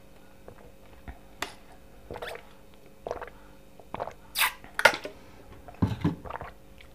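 A person drinking from a sports water bottle: a series of short sips and swallows, the two loudest about four and a half and five seconds in.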